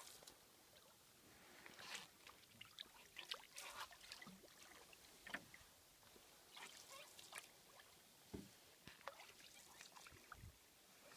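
Faint canoe paddle strokes: water splashing and trickling off the blades in short bursts every second or two.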